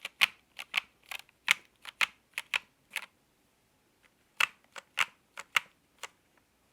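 Keys being typed on an Epomaker TH66 mechanical keyboard with Epomaker Flamingo switches: separate keystroke clicks, about three a second, pausing for about a second midway, then a few more strokes that stop shortly before the end.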